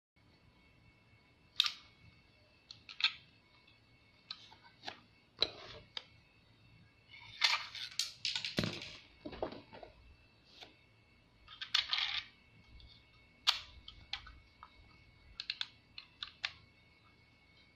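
Plastic clicks, snaps and scrapes from a 3D-printed PLA replica FP-45 Liberator pistol being handled and its sliding breech block worked: scattered sharp clicks, with longer runs of scraping and clicking a little past halfway and again about two-thirds through. A faint steady high whine sits underneath.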